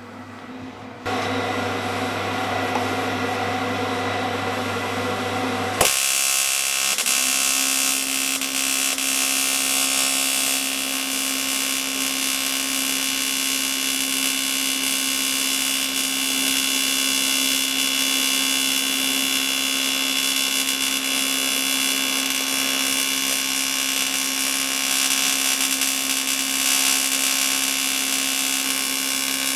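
Brazing torch flame running steadily on a cast iron gear repair: a continuous hiss that starts abruptly about a second in and becomes louder and brighter about six seconds in.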